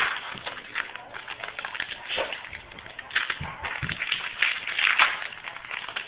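Trading cards and foil card-pack wrappers being handled, with rustling and crinkling and many light clicks.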